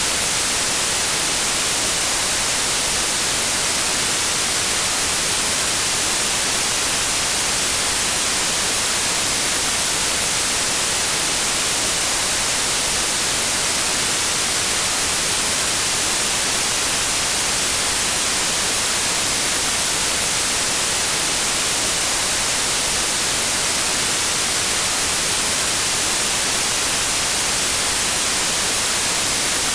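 Steady white noise: an even, unchanging hiss, brightest in the treble, with nothing else in it.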